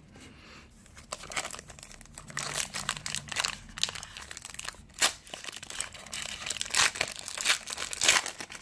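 Crinkling and tearing of a trading-card pack's foil wrapper as a new pack is opened by hand: irregular crackles with a few sharper snaps, starting about a second in.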